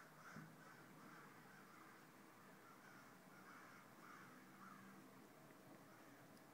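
Crows cawing over and over, faint, with short calls coming two or three a second.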